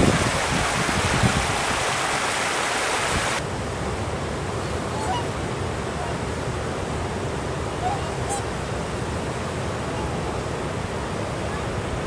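Shallow river water rushing and splashing over icy rocks, cutting about three seconds in to the softer, steady rush of a river cascade, with a few faint honking calls from swans.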